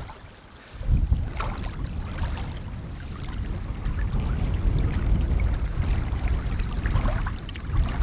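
Wind buffeting the microphone: a heavy low rumble that sets in about a second in and keeps going, with some faint rushing noise above it.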